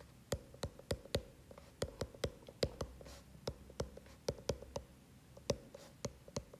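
Stylus tip tapping and clicking on a tablet's glass screen while writing, a quick irregular run of sharp little clicks, about three a second.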